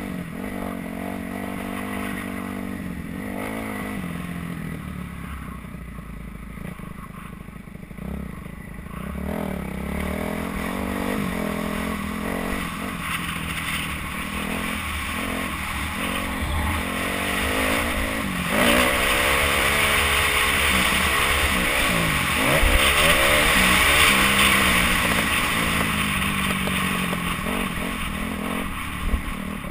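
Kawasaki KX250F's single-cylinder four-stroke engine revving up and down as the bike is ridden hard around a motocross track, heard from a helmet-mounted camera. A rushing noise builds over the second half and is loudest there, at higher speed and throttle.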